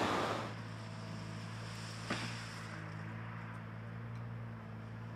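A steady rushing noise cuts off about half a second in, giving way to a small excavator's diesel engine running steadily, with a single sharp click about two seconds in.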